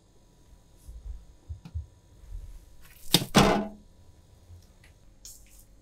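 Handling of a plastic-wrapped bowl on a refrigerator shelf: a few light knocks, then a loud double knock with a short ring about three seconds in, and a brief rustle near the end.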